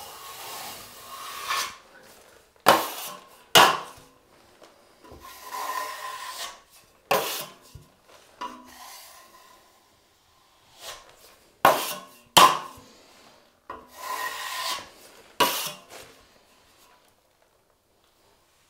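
Steel drywall trowel spreading and scraping joint compound across a drywall patch in repeated strokes about a second long, with several sharp knocks of the blade in between.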